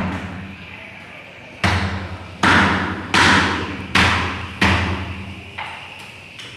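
A large kitchen knife chopping raw chicken on a cutting board: after a short pause, five heavy chops a little under a second apart, then two lighter ones near the end.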